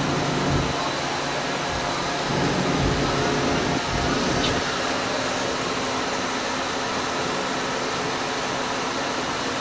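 FEMCO HL-35 slant-bed CNC lathe running, its spindle turning a nylon part while the turret's turning tool cuts it dry, throwing off curled chips. A steady machine hum with a few faint steady tones.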